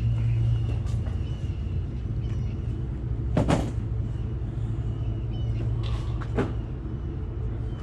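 Steady low hum, with two brief knocks about three and a half and six and a half seconds in and a few faint high chirps.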